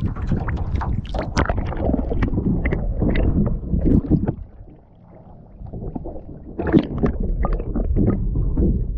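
Water splashing and gurgling against a camera dipped over the side of a boat beside its hull, with sloshing and short knocks; it drops away for a second or two midway, then the splashing picks up again.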